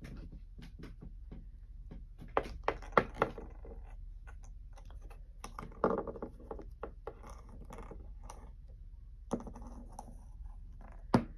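Light clicks and taps of small plastic toys being handled on a tabletop, a quick run of them about two to three seconds in and a sharper knock near the end as a toy figure is set down.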